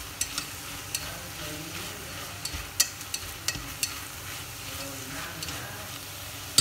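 Beef and Thien Ly (tonkin jasmine) flowers sizzling in a stainless steel pot while being stirred with wooden chopsticks, with a dozen or so sharp clicks of the chopsticks against the pot, bunched in the middle.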